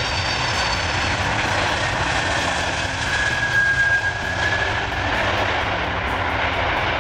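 Antonov An-124 Ruslan's four turbofan engines running with a loud, steady noise. About halfway through, a high whine briefly swells and fades.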